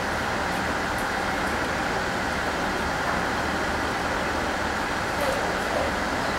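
Steady hum and rumble of a Shinano Railway Class 169 electric multiple unit.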